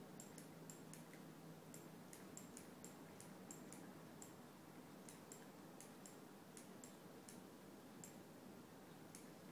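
Faint, irregular light clicks and taps, singly and in quick pairs, from a cat's paw tapping a touchscreen computer monitor, over quiet room tone.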